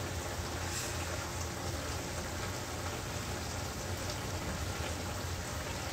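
Steady hiss and fine crackle of food cooking on the stove, over a low hum.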